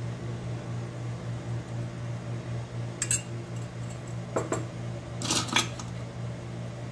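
A metal spoon clinking against a ceramic mug and drinking glasses as soaked basil seeds are spooned into the glasses: a few light clinks from about three seconds in, the last ones in a quick cluster a little after five seconds. A steady low hum runs underneath.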